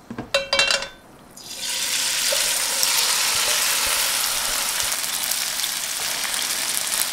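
Okonomiyaki batter of cabbage, bacon and chopped dumplings hitting hot oil in a non-stick frying pan: a loud, steady sizzle that starts suddenly about a second and a half in.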